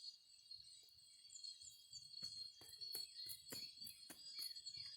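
Faint steady trilling of insects, with small sharp crackles and snaps of burning and handled dry twigs from a tiny campfire, coming more often from about two seconds in.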